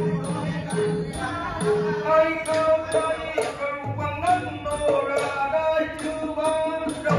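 A male voice chanting Thai verse in the nang talung style over a live Nora ensemble, with the voice most prominent from about two seconds in. Small hand cymbals keep a steady high ticking beat about two to three times a second, over low drum strokes.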